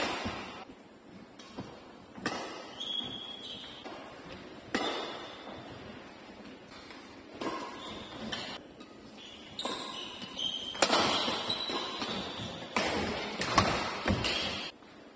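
Badminton rally: sharp cracks of rackets striking a shuttlecock, irregularly about one every one to two seconds, echoing in a large indoor hall, with short high squeaks of court shoes in between.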